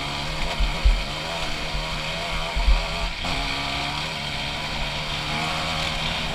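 Honda CRF250 dirt bike's single-cylinder four-stroke engine, fitted with an HGS aftermarket exhaust, running at a steady low throttle on a rocky trail. It eases off briefly about three seconds in and rises in pitch as it picks back up. Low thumps come through from the bike jolting over rocks.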